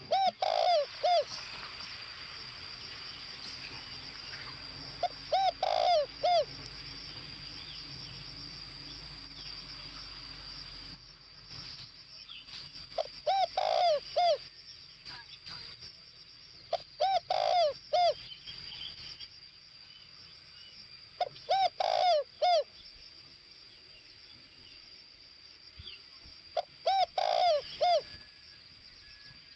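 Spotted dove (chim cu gáy) kept as a lure bird, cooing: six short phrases of three or four low coos, one every four to five seconds. A steady high-pitched whine runs underneath.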